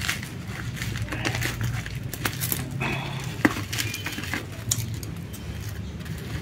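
Scissors cutting into the bubble-wrap and tape around a cardboard box, with plastic crinkling and scattered small clicks, and one sharp click about three and a half seconds in. A steady low hum runs underneath.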